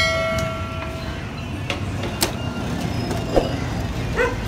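Busy outdoor market background noise. A ringing tone sounds at the start and fades over about a second, followed by a couple of sharp knocks from the butcher's block, and a dog yelps once near the end.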